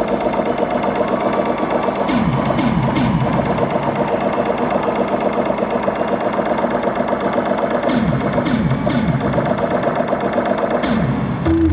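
Live arena concert music through the PA: a fast, even, buzzing pulse, with falling swoops in pitch about two seconds in and again about eight seconds in, and a few sharp clicks.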